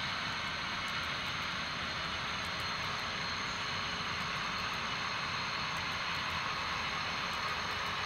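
Model freight train of tank cars running along the layout's track, giving a steady whirring hiss with faint, irregular ticking clicks.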